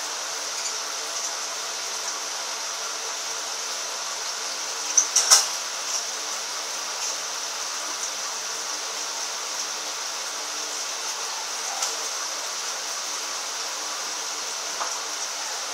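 Steady room-noise hiss with a faint hum. A quick cluster of sharp clicks comes about five seconds in, and single faint ticks come later.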